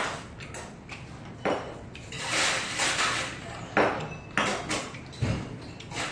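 Metal spoon and chopsticks clinking and scraping against a small metal pot of chicken soup while eating, with several sharp clinks.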